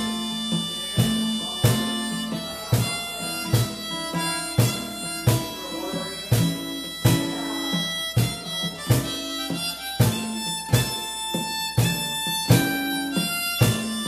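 Harmonica played in a neck rack, holding long notes over strummed acoustic guitar chords, with a strum about every second.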